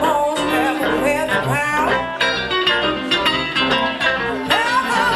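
Live band music: a woman singing into a microphone over electric bass and guitar, with sliding vocal phrases near the start and again near the end.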